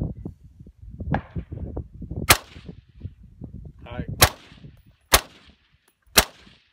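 Rifle fired four times, each shot a sharp crack: the first about two seconds in, then three more spaced about a second apart.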